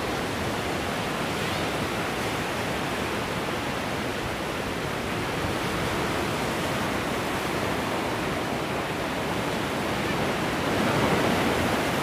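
Sea surf washing onto the shore: a steady rushing noise that swells a little near the end.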